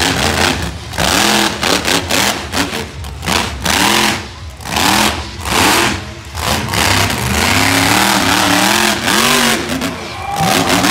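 Monster truck engine revving hard in repeated bursts, its pitch rising and falling with each stab of the throttle. It is then held near full throttle for a couple of seconds as the truck launches over a dirt jump near the end.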